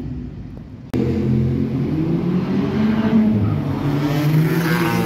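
Scooter engines running loud as two scooters ride up, among them a two-stroke Malaguti F12 fitted with a 70cc kit, its engine note climbing near the end. For the first second there is only fainter riding noise.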